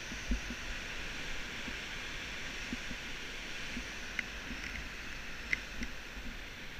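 Steady rushing noise, with a few sharp light clicks of abseiling hardware on the rope: one about four seconds in and a couple more a little after five seconds.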